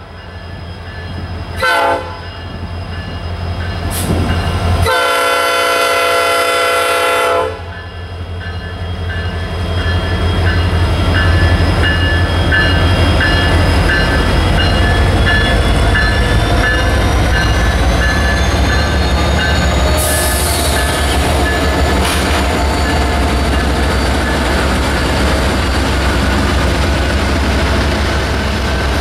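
Diesel freight locomotive horn sounding a short blast, then a long one, the end of the grade-crossing signal. Then two Norfolk Southern diesel locomotives pass close by under power, their engines running loud and low over the rumble of the train, with a bell ringing steadily for about ten seconds.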